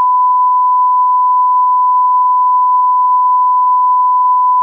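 Television colour-bar test tone: a single loud, steady beep held at one pitch without a break, the reference tone that plays with the bars.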